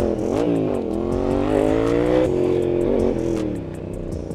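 Motorcycle engine under hard acceleration, its pitch climbing and then dropping sharply at each gear change, a few times over.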